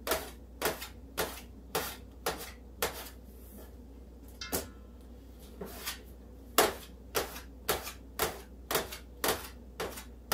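Metal bench scraper chopping through dough and knocking on a stainless steel table, about two strikes a second, with a lull of a few seconds in the middle.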